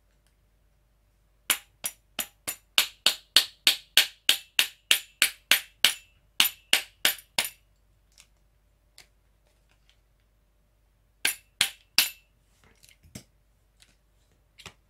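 Light hammer taps on a folded piece of cardboard laid over the rotary shaft of a Sony EDV-5000 ED Beta VCR head drum, driving the shaft out: a quick run of about twenty sharp taps, three to four a second, each with a short metallic ring, then after a pause a second short run of four. The shaft is being knocked out because the unglued upper ferrite core of the rotary transformer has dropped and rubs on the lower core, jamming the drum.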